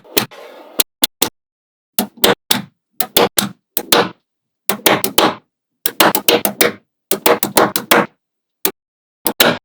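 Small magnetic balls snapping together as they are placed one after another: sharp clicks in quick clusters of two to six, with short silent gaps between the clusters.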